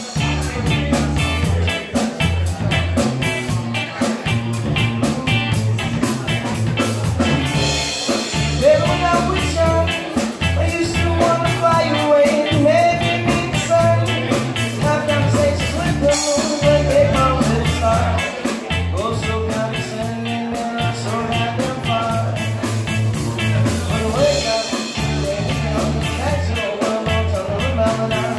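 Live rock band playing: electric guitar, electric bass and drum kit, with cymbal washes about every eight seconds. A man sings over it from about nine seconds in.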